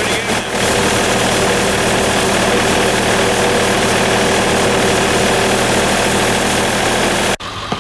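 John Deere 2720 compact tractor's three-cylinder diesel running steadily while its front-mounted 60-inch rotary broom sweeps slush off the road, with a constant rushing of the brush. The sound cuts off suddenly near the end.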